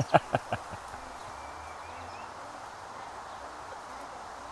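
A quick run of about five taps from a child's dancing feet in the first second, then a steady outdoor background hiss.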